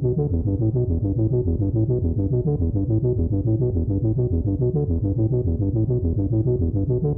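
Background music: a synthesizer keyboard line of quick, evenly repeated notes, with no drums.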